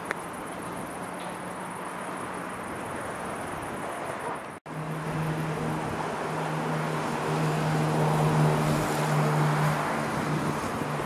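Train running at the station: a low steady hum with overtones that swells louder, over wind noise on the microphone. A brief drop-out about halfway through breaks it.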